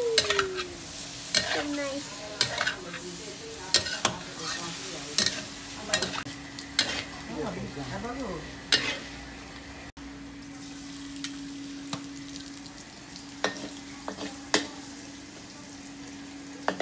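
Food sizzling in a pan while it is stir-fried, the metal spatula scraping and clinking against the pan at irregular intervals, more often in the first half. A steady low hum runs underneath.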